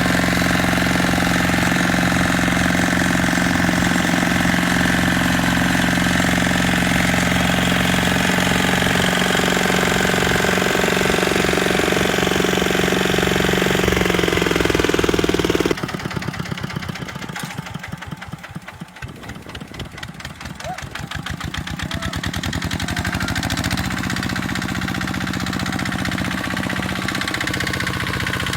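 Kubota tractor diesel engine running steadily. About halfway through the sound changes suddenly to a quieter engine whose separate firing pulses can be heard; it slows to its lowest a few seconds later, then builds back up to a steady run.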